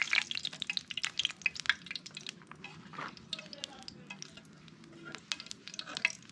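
Fish pieces frying in hot cooking oil in a pan: a dense, irregular crackle of spattering pops, with a fork working in the pan.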